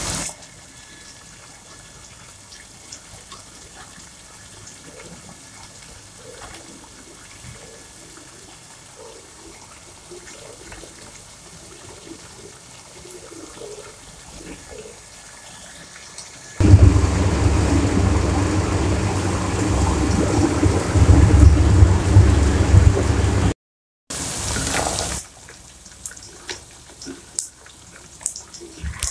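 Chicken pieces sizzling in oil in a cooking pot: faint at first, then a loud stretch of sizzling with a deep rumble for about seven seconds that stops abruptly, followed by a short loud burst and a few clicks.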